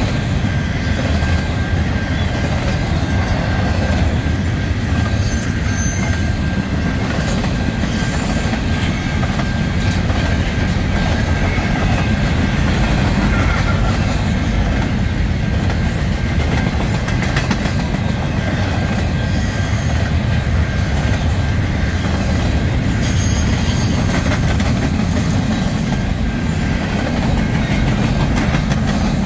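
Double-stack container train of intermodal well cars rolling past at track level: a steady rumble of steel wheels on the rails, with occasional brief high wheel squeals.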